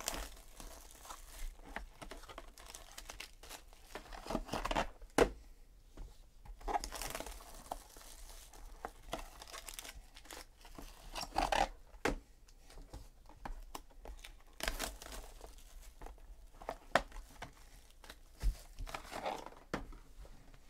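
Clear plastic shrink-wrap torn and crinkled off small cardboard trading-card boxes, in irregular rustling bursts, with a few sharp clicks and knocks as the boxes are handled.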